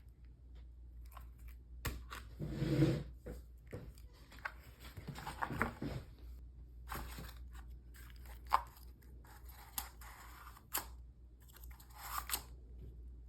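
Cardboard being torn, crunched and scraped in irregular spells, with a few sharp clicks between them and a steady low hum underneath.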